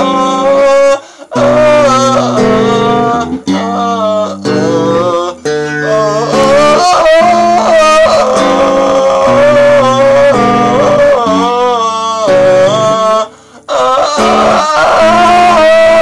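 A man singing with long held notes while playing chords on a guitar. The music breaks off briefly about a second in and again near the end.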